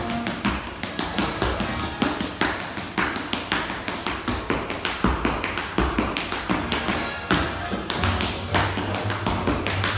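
Tap shoes striking a hard stone floor in quick, irregular runs of taps, several a second, over recorded big-band swing music.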